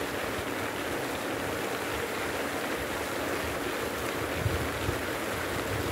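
Pond aerator churning and splashing water in a steady rush.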